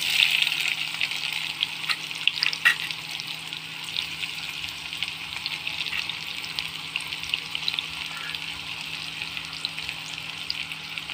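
Chopped onions sizzling and crackling in hot oil in a steel kadhai, loudest at the start and easing to a steady sizzle after a few seconds, with a faint steady low hum underneath.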